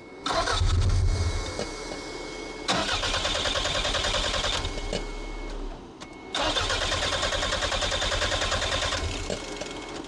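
Toyota MR2 turbo engine cranking on the starter in three bursts of a few seconds each, turning over with an even pulse but not catching on its no-start fault. A clicking comes from the intake, which the mechanic traces to the mass airflow sensor.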